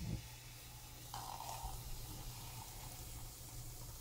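Liquid nitrogen being poured into a bowl, boiling off on contact with a faint hiss and sizzle.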